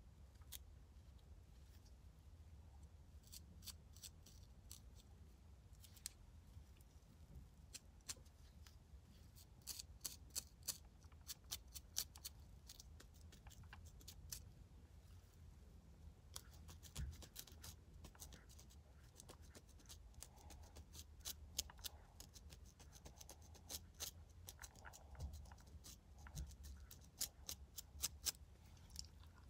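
A fine-tooth plastic comb scratching across the scalp between braids to loosen dandruff flakes. It makes irregular runs of quick, crisp scratches, which come thicker from about a third of the way in.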